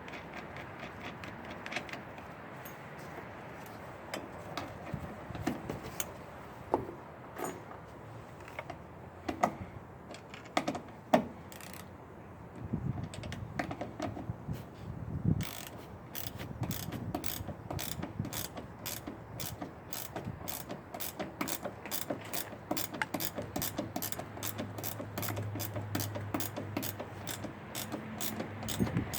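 Ratchet wrench clicking as it turns, in a steady run of about three clicks a second through the second half, while bolts are tightened on a generator's rubber feet. Before that come scattered knocks and clicks of parts and tools being handled.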